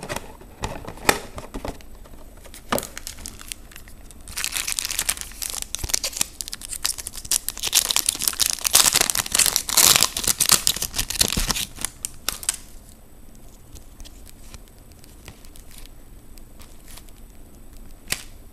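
Foil trading-card pack wrapper crinkling and being torn open. A dense, loud crinkle starts about four seconds in and lasts some eight seconds, with scattered small clicks and rustles before and after.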